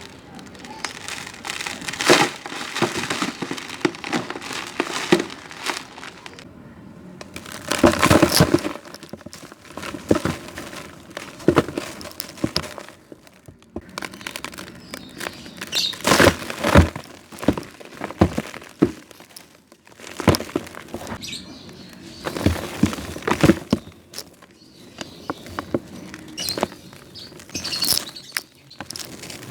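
Stacked dry crumbly blocks crushed and broken apart by hand, crackling and crunching in repeated bursts with quieter crumbling between.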